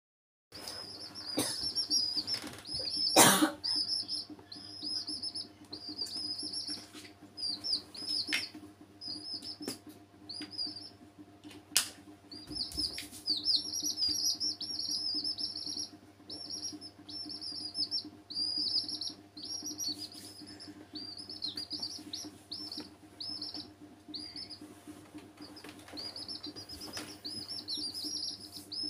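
Domestic chicks peeping almost continuously in quick runs of high, short chirps, with a few sharp knocks, the loudest about three seconds in. A steady low hum runs underneath.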